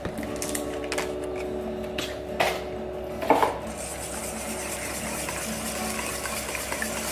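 A few knocks against a stainless steel bowl as cottage cheese is tipped into beaten eggs. From about four seconds in, a wire whisk stirs the mixture with a steady scraping swish.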